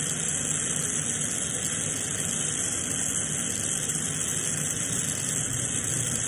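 Glassworking bench torch burning steadily with an even hiss.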